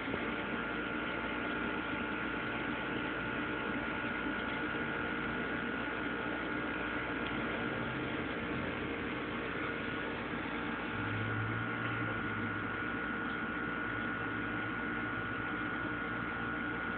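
Steady hum and hiss with a few faint steady tones underneath, unbroken and without distinct events.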